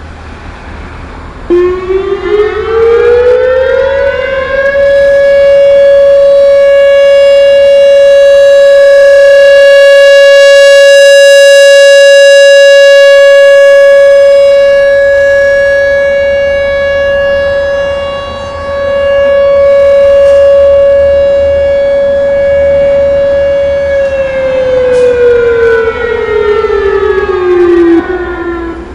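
Whelen WPS-3016 electronic outdoor warning siren sounding its steady alert signal: the tone glides up in pitch over about three seconds, holds one steady pitch for about twenty seconds, then glides back down near the end.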